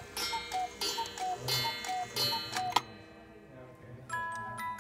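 Mechanical Black Forest cuckoo clock sounding its cuckoo: a falling two-note call, each note with a breathy hiss, repeated several times and ending with a sharp click about three seconds in. Near the end a tinkling tune of ringing notes starts, the clock's music box.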